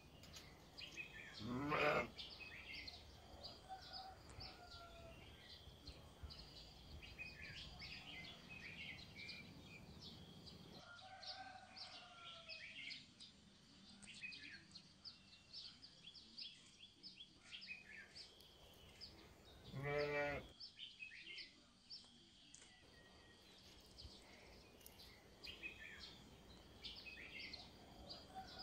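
A bleating farm animal calls loudly twice, once about two seconds in and again about twenty seconds in, each call quavering. Small birds chirp between the calls.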